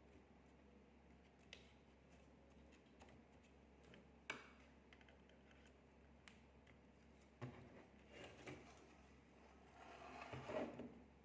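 Faint, sparse clicks of small hardware parts being handled: a few single clicks, then a busier patch of clicking and rustling near the end.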